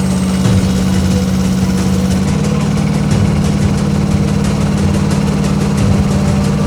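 Rippa R10 mini excavator's Kubota diesel engine running steadily. Its note shifts slightly a little over two seconds in, with a fine, even clatter after that.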